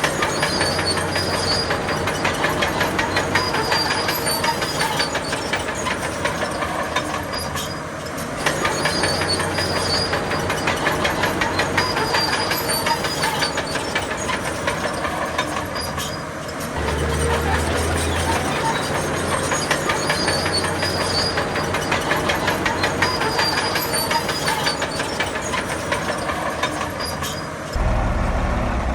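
Crawler bulldozer at work: its diesel engine running under load with the fast, dense metallic clatter of its steel tracks, easing off briefly every eight seconds or so. Short high tones sound in repeated groups over the clatter.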